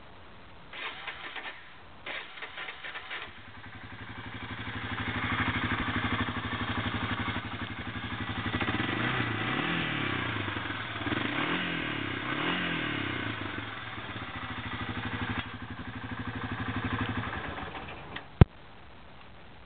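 1996 Honda FourTrax 300 ATV's air-cooled single-cylinder four-stroke engine is cranked twice on the starter, catches about three seconds in and runs, is revved up and back down three times around the middle, then is shut off. A single sharp click follows just after it stops.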